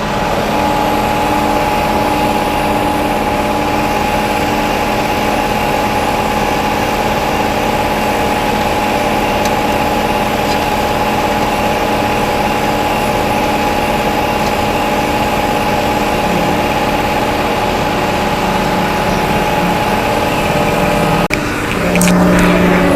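Diesel engine of a concrete mixer truck or pump running steadily while it discharges concrete into a bridge pour, a steady hum with a constant pitch. Near the end the sound dips briefly and shifts to a different tone.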